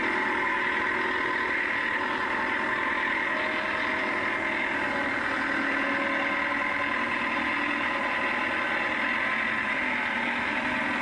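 Leyland farm tractor engine running steadily.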